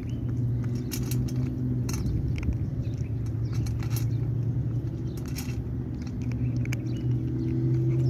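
Cat crunching dry kibble from a stainless steel bowl: irregular sharp clicks of chewing and kibble against metal, over a steady low hum.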